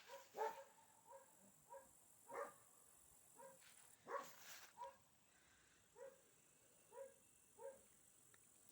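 A dog barking faintly and repeatedly, about ten short barks spaced roughly a second or less apart.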